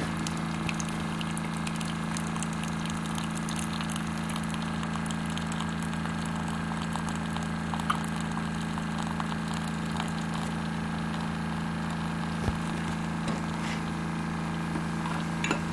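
A kitchen appliance heating water for tea: a steady hum with an even hiss and a few faint clicks and crackles.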